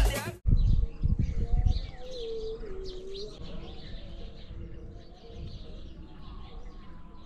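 Birds chirping outdoors, with low cooing calls among them. A low rumble runs under the first couple of seconds, and a burst of music cuts off at the very start.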